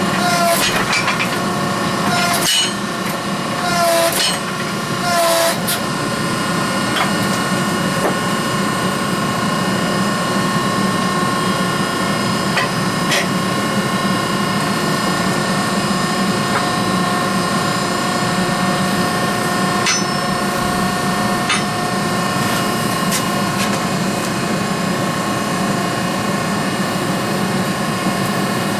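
Five or six ringing hammer blows on metal in the first six seconds, while the forging of a layered steel billet goes on. A steady mechanical drone runs underneath and continues alone after the blows, with a few faint ticks.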